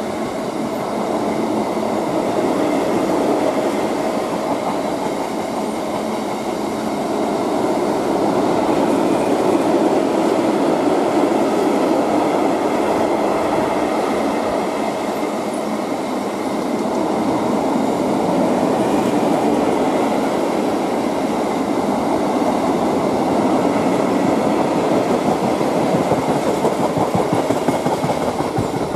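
Freight train of bogie tank wagons rolling past: the steady noise of wagon wheels running on the rails, swelling and easing a little as the wagons go by, and dropping slightly as the last wagon passes at the very end.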